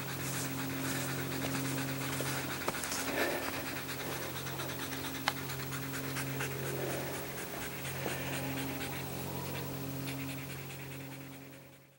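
German Shepherd dog panting rapidly and steadily after running, over a steady low hum; it all fades out near the end.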